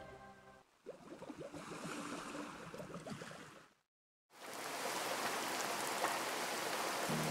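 Water bubbling and gurgling in short irregular pops, cut off by a brief dead silence about four seconds in, then a steady rain-like hiss of water.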